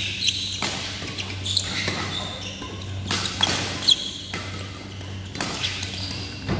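Badminton rally: rackets striking the shuttlecock in sharp hits and sneakers squeaking on the court floor, several times over the few seconds, over a steady low hum.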